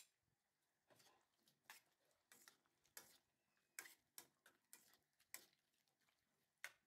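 Spatula stirring chunks of meat and vegetables in a stainless steel pan: faint, irregular clicks and scrapes of the spatula against the pan.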